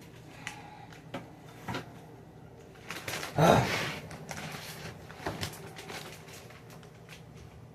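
Light knocks and clatter of items and plastic fridge drawers being handled, with one louder scraping rustle about three and a half seconds in.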